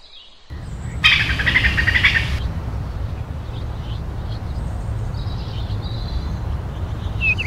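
Forest ambience: birds chirping and tweeting over a steady low rumble, with a louder, hissy flurry of chirps from about one to two and a half seconds in.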